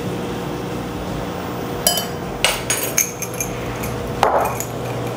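A metal measuring spoon tapping and clinking against a glass measuring bowl and a small glass spice jar, several sharp knocks starting about two seconds in, with a short scrape a little after four seconds. A steady low hum runs underneath.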